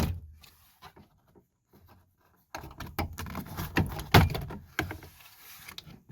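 Interior trim panel being pulled off a 2005 Chrysler Town & Country sliding door: clicks and knocks as the plastic retaining clips let go. A short burst of clicks at the start, a near-quiet second or two, then from about two and a half seconds in a busy run of clicks, knocks and rattles, the loudest knock about four seconds in.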